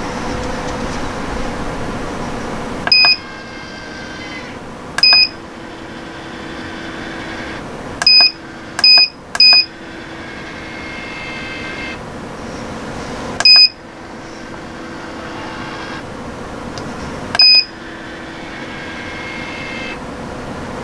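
Maticoopx incubator control panel beeping as its buttons are pressed: seven short electronic beeps, unevenly spaced, three of them in quick succession about eight to ten seconds in. Under the beeps the incubator runs with a steady hum.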